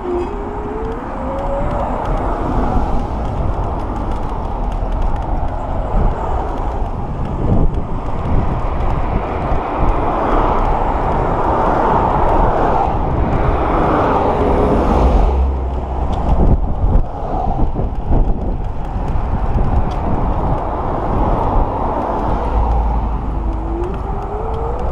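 Wind buffeting the microphone and road traffic noise during a ride on an electric scooter, a steady loud rumble. A short rising whine comes once near the start and again near the end.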